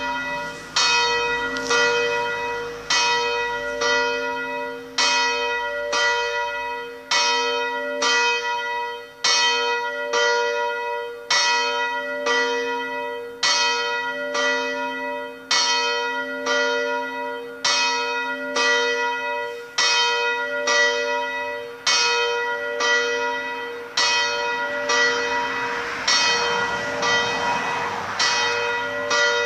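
Two swinging church bells, a 300 kg bell cast in 1947 and a 110 kg bell cast in 1928, rung by an electromagnetic swing drive, their clappers striking roughly once a second so the strokes overlap in an uneven alternating rhythm, each stroke ringing on into the next.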